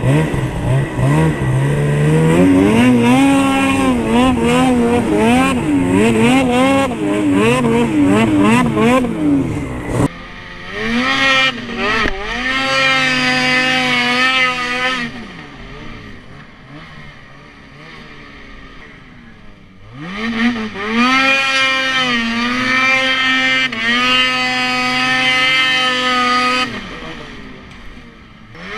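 Ski-Doo 600 two-stroke snowmobile engine under throttle, its pitch rising and falling quickly for about ten seconds. After an abrupt change it climbs to high, steady revs, drops back to a quieter lull, then climbs and holds high again near the end.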